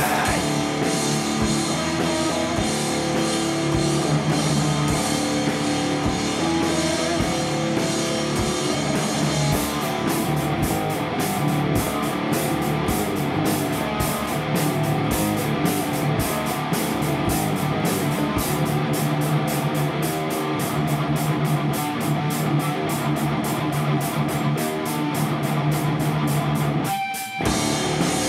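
Punk rock band playing an instrumental passage: electric guitar over bass and drums, with no vocals. The cymbals get busier about ten seconds in, and the band cuts out for a moment near the end before coming back in.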